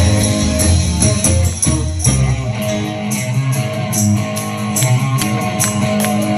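Live rock band playing, with guitars over drums and a steady high ticking beat. The deep bass falls away about two seconds in.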